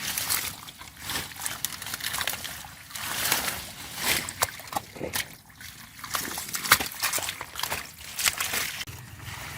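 Shallow water sloshing and splashing unevenly, with many sharp splashes, as the water is stirred by hand.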